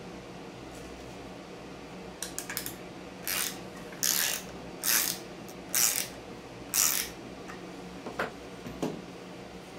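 Ratcheting wrench clicking as it turns a bolt, in about five short bursts roughly a second apart, one per stroke of the wrench. Two lighter knocks follow near the end.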